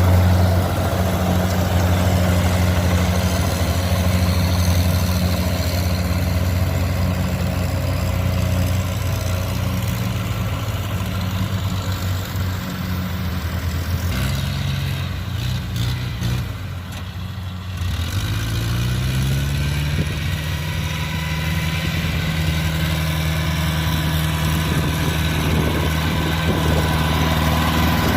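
Kubota DC70 combine harvester's diesel engine running steadily at working speed. About halfway through it drops lower and quieter for a few seconds, then its pitch rises back over a couple of seconds and holds.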